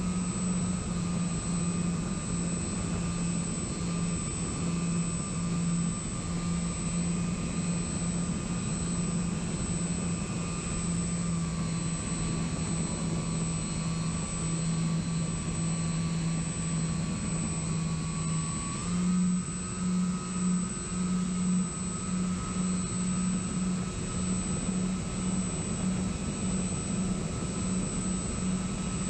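Electric motor and propeller of a radio-control model plane, recorded by the onboard camera in flight: a steady drone with a rush of air. The pitch sags slightly about 11 seconds in and steps back up suddenly about 19 seconds in.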